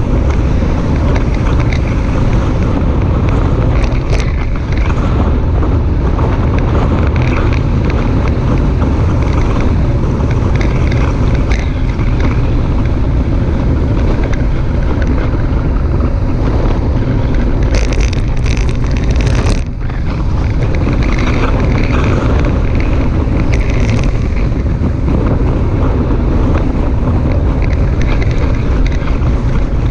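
Wind buffeting the microphone of a bicycle-mounted GoPro while riding at speed: a loud, steady rumble, with a few short bursts of hiss about two-thirds of the way through.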